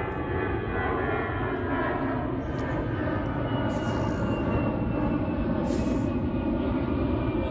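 A jet airliner passing low overhead: a loud, steady rumble with a high whine that slowly falls in pitch.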